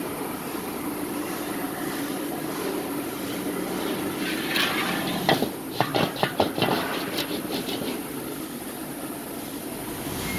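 Charcoal wok burner's blower running steadily, air rushing through the firepot. About five seconds in, a wok is lowered onto the stainless burner ring with a quick series of sharp metal clanks.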